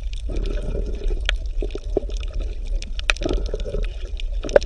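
Underwater water ambience: a steady low rumble with a haze of water noise and scattered sharp clicks, one louder click near the end.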